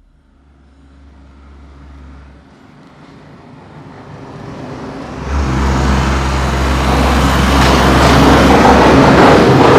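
School bus approaching on a road, its engine and tyre noise growing steadily louder, then much louder about five seconds in as it draws close.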